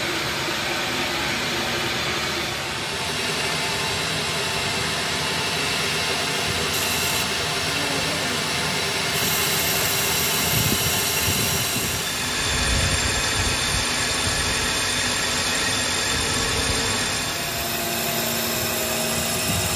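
Metal lathe running, its cutting tool turning the face of a spinning cast brake disc: a steady machining noise of motor, chuck and cut, which shifts slightly in tone about halfway through.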